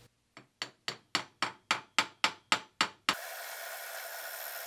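The split nut on a homemade Gingery metal lathe's carriage skipping over the lead screw threads. It makes about a dozen sharp clicks, roughly four a second, getting louder, and they stop about two thirds of the way in. The skipping is a sign of a worn split nut, as the builder thinks.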